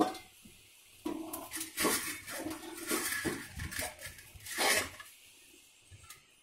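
Thick metal cooking pot clanking and scraping against a gas stove as it is turned and taken off the burner: a string of irregular knocks and scrapes that stops about a second before the end.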